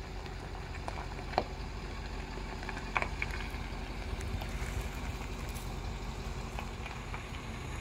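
Heavy-duty dual-rear-wheel pickup truck's engine idling steadily, with a couple of short clicks over it.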